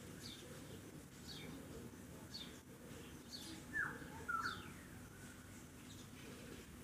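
Bird chirping: short, high, falling chirps about once a second, with a louder two-part call about four seconds in, over a steady low background hum.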